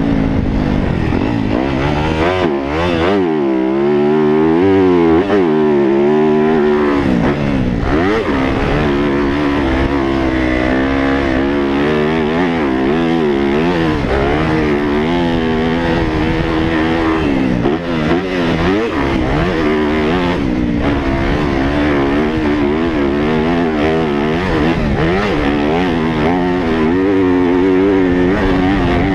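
Yamaha YZ250F's 250 cc four-stroke single-cylinder engine heard from the bike, revving up and down under hard riding, its pitch rising and falling every second or two with throttle and gear changes.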